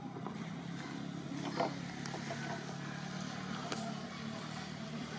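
A motor engine running steadily as a low drone, with a brief high call about a second and a half in.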